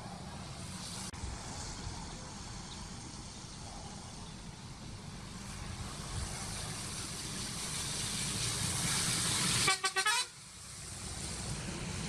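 Road vehicle passing: its engine and tyre noise swell steadily, then its horn gives a few short toots just before ten seconds in, and the rushing noise drops away and slowly builds again.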